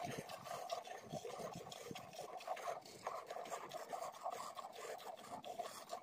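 Buffalo being hand-milked: thin streams of milk squirting into a steel pail, a rhythmic scratchy hiss with each pull on the teat.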